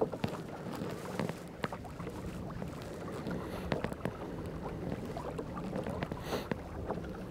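Fishing kayak under way on a lake: water washing along the hull with a steady low hum and a few small knocks.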